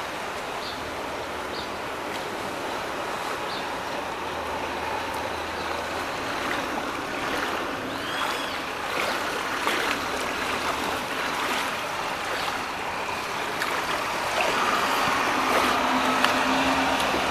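Steady rush of water, from rain and floodwater running through a flooded street. A low steady hum joins near the end as the sound grows a little louder.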